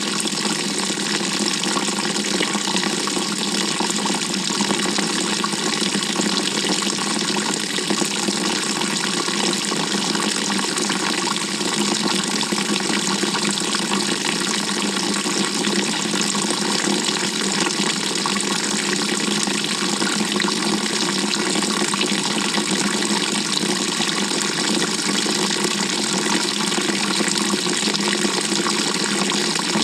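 Water rushing steadily inside the drum of a GE GTW220ACKWW top-loading washing machine, heard from within the drum, with no breaks or changes.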